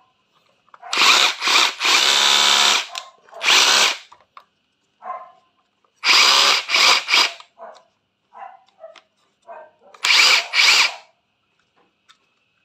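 Hitachi 18V brushless cordless rotary hammer run free in short trigger bursts, four loud spins of the motor of up to about a second each with pauses between. Its gears run smoothly, with small quiet clicks between the bursts as the mode selector knob is turned.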